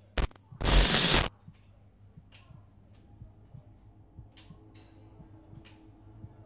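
A brief crackle, then a burst of harsh noise lasting about two-thirds of a second, both starting and stopping abruptly. After that only faint scattered ticks over a low hum.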